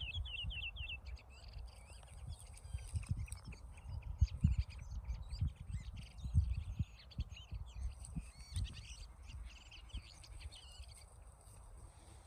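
Several small birds chirping and twittering in quick, overlapping short notes. Irregular low rumbling thumps sound underneath.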